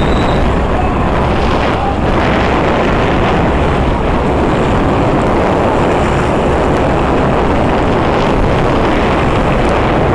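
Small motorboat under way at sea: a steady engine drone under a loud rush of wind and water noise on the microphone.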